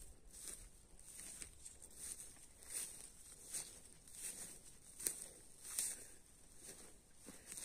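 Footsteps walking through dry grass and forest litter, a soft crunching step about every three-quarters of a second.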